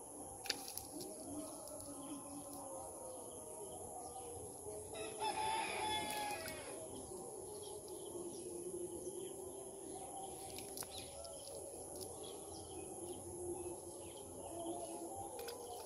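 A rooster crows once, about five seconds in, with faint chicken clucking around it.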